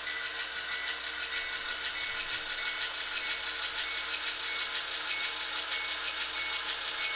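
An HO-scale Norfolk Southern GP40-2 model locomotive's Tsunami sound decoder plays a diesel engine sound through the model's small speaker, steady with a faint even beat, while the locomotive creeps along the track toward the cars it will couple to.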